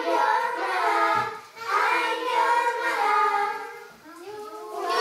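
A group of children singing a song together, holding long notes, with a short break about a second and a half in and a dip just before the end.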